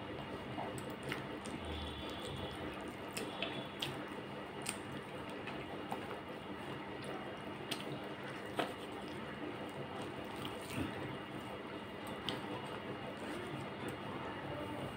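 Eating sounds: a hand squishing and mixing cooked rice with wet fish curry in a plate, with chewing, making a steady soft wet squelching dotted with small clicks.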